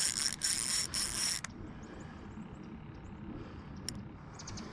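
Fishing reel ratcheting and whirring for about the first second and a half while a catfish is reeled in. After that there is only a low background with a few faint ticks near the end.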